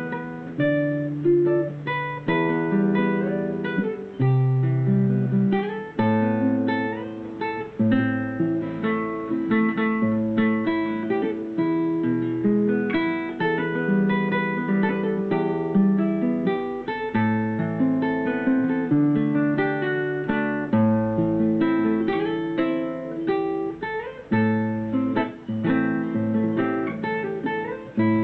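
Solo classical guitar fingerpicked, playing a slow melody over plucked bass notes without a break.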